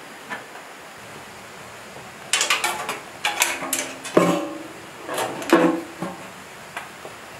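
Metal fuel tank being fitted onto a single-cylinder diesel engine: a run of sharp clanks and knocks, some ringing briefly, loudest about four and five and a half seconds in.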